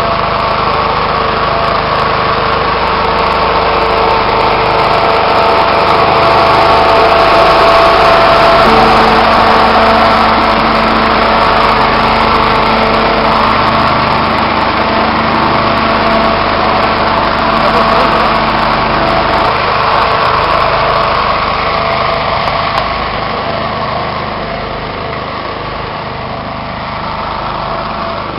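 Tractor-drawn centrifugal nebulizer sprayer at work: its fan and the tractor engine run loud and steady, a rushing blast of air with a steady whine in it. The sound eases off somewhat after about twenty seconds.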